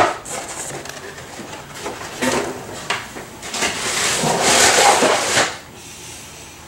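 Cardboard box and packing being handled: a sharp knock at the start, a couple of lighter knocks, then about two seconds of rustling and scraping before it goes quiet.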